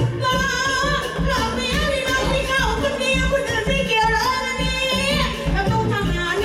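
A woman singing a Thai song into a microphone over amplified musical accompaniment with a steady beat.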